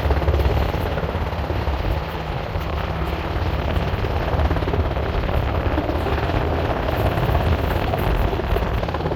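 U.S. Coast Guard rescue helicopter hovering close over a ship's stern, its rotors beating steadily, with strong wind rushing across the microphone.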